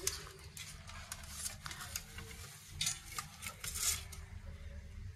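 Faint scraping and small clicks as a laptop keyboard is worked loose from its top case, plastic and metal parts rubbing and tapping, over a low steady hum.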